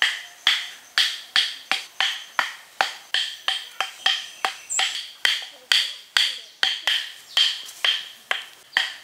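Hammer driving thin wooden stakes into sandy ground: a steady series of sharp knocks, about two to three a second, each with a short ring.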